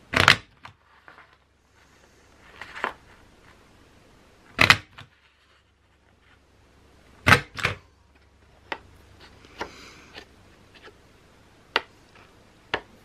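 Craft edge punch pressed down again and again, a sharp clack each time it cuts a lace border into the edge of white paper, a couple of seconds between strokes. Between presses the paper rustles as it is slid along to the next position.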